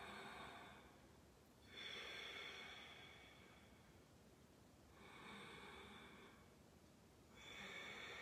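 Faint, slow breathing of a person holding a yoga pose: soft breaths through the nose or mouth, each lasting a second or two, about three in a row.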